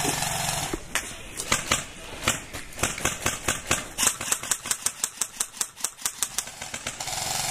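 Airsoft guns firing: a buzzing burst of full-auto fire at the start and another near the end, with irregular sharp cracks of single shots and BB hits, several a second, in between.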